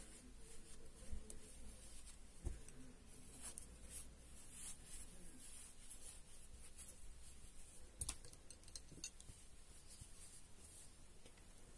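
Faint rustling and rubbing of plush fabric and synthetic fibrefill as stuffing is pushed by hand into a toy bear's limb, with a few knocks.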